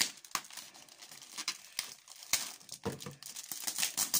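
Clear inflated plastic air-cushion packaging crinkling and crackling as it is handled and pulled open, in irregular sharp crackles.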